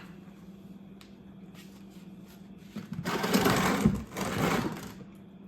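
Two loud bursts of scraping and rattling, about three seconds in, as objects are dragged and shuffled across the floor, over a steady low hum.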